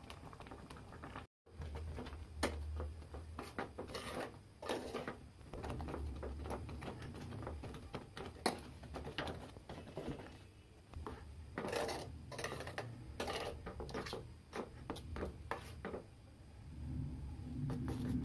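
Cooking sounds at a gas stove: scattered clicks and knocks as the burner knob is handled and turned, over a low steady rumble. Near the end a steel spoon stirs thick masala oats in a steel bowl, a softer churning sound.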